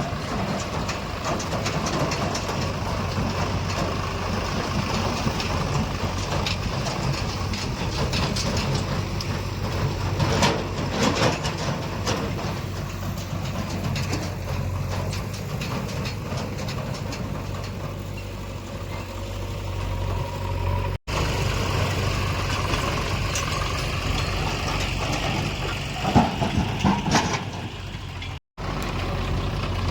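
Diesel engine of a JCB 3DX backhoe loader running steadily with a low hum while it works, with a few clanks and knocks, about ten seconds in and again near the end.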